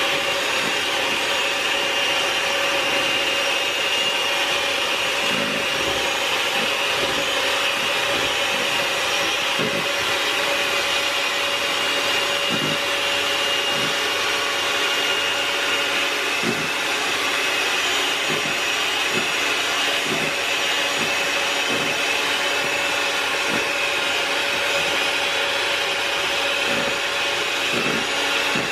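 Hamilton Beach electric hand mixer running at a steady speed, its beaters whipping a liquid mix of instant coffee, sugar and hot water that is just starting to thicken. A constant motor whine, with a short low knock now and then.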